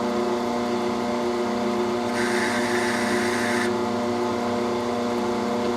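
Grizzly G0602 metal lathe running with a steady gear whine, taking a 60-thou test cut in steel under power feed. About two seconds in, a high hiss rises for a second and a half, then stops.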